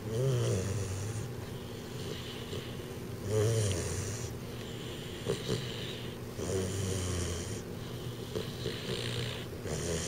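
American Bulldog puppy snoring in his sleep, a rumbling snore on each breath about every three seconds. The owner puts the snoring down to his pronounced overbite.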